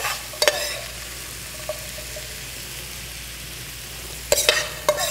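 Green beans and walnuts sizzling in a hot stainless steel sauté pan as metal serving utensils scrape and clink against the pan, once at the start and again in a short flurry about four seconds in.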